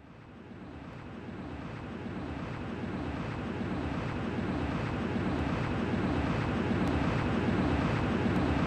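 Jet fighter engine sound effect: a steady rushing jet noise that fades in from silence and grows louder over the first few seconds, then holds steady.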